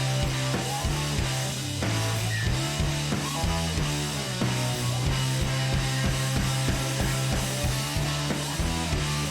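Background rock music with guitar and drums: held bass notes under a steady beat.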